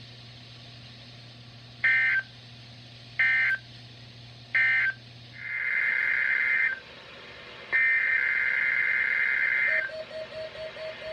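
EAS / NOAA Weather Radio SAME digital data tones. Three short screechy bursts about a second and a half apart, the end-of-message code closing the weekly test, are followed by two longer bursts of the same tones, the coded header of the next broadcast. Near the end a pulsing beep begins.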